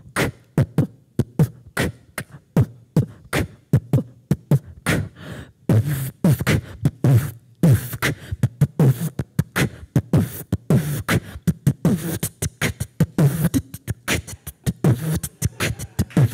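A woman beatboxing into a handheld microphone: a fast, steady rhythm of low kick-drum thumps and sharp snare-like clicks, which grows denser and hissier about six seconds in.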